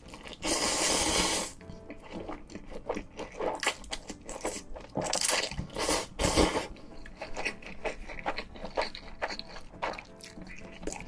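Kimchi fire noodles (spicy buldak ramen) being slurped up from chopsticks in loud noisy draws. The long slurp comes near the start, and shorter ones come about five and six seconds in. Between the slurps is close-up wet chewing with many small clicks and smacks.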